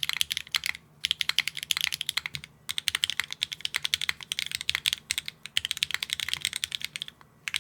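Fast typing on a Neo65 Core Plus mechanical keyboard with HMX Yamatake Light Tactile switches and no foam: rapid runs of keystroke clacks, broken by a few brief pauses.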